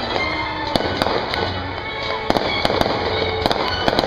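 Aerial fireworks going off in an uneven string of sharp bangs and crackles, about a dozen in four seconds, over music and crowd noise.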